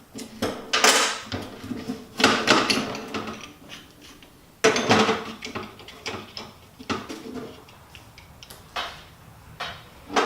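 Metal parts of a vintage electric drill's housing being handled during disassembly: clinks, scrapes and about five sharper clanks spread over the ten seconds.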